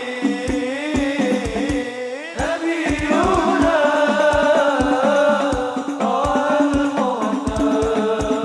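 Background music: a sung melody over a steady drum beat.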